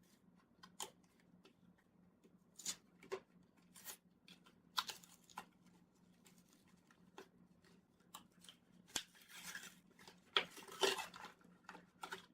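Hands working at the plastic packaging of a new SD card: scattered clicks and crinkling, with a busier stretch of crackling and tearing about nine seconds in.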